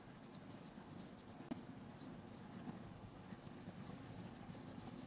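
Faint scratching of a small coil whisk stirring dry flour coating mix in a plate, with one light tick about a second and a half in.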